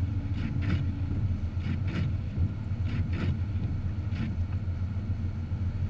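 Car driving in a snowstorm, heard from inside: a steady low rumble of engine and road. A soft swish comes in pairs about every second and a half.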